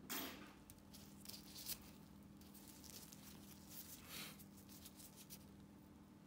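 Faint, short scratches of a steel pedicure blade scraping at a toenail, a handful of them, the loudest right at the start and another just after four seconds, with a low steady hum underneath.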